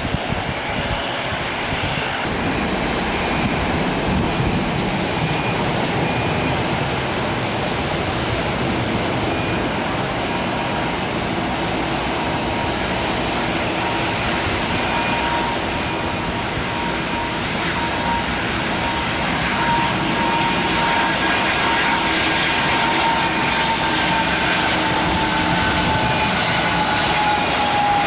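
Jet airliner engines: a steady rushing noise with a whine that grows clearer late on and slides down in pitch near the end.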